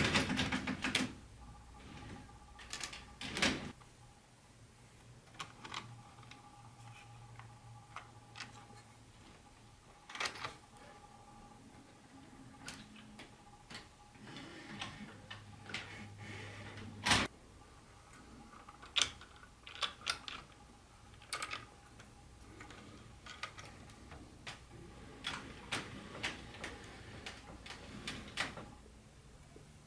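Irregular clicks and taps of HO-scale model train pieces being handled. A faint steady hum runs underneath, and the loudest knocks come at the very start and about halfway through.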